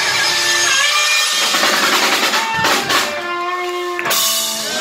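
Live rock band of electric guitar, bass guitar and drum kit playing the closing bars of a song: held guitar notes under drum hits and cymbal crashes about two and a half seconds in and again near the end.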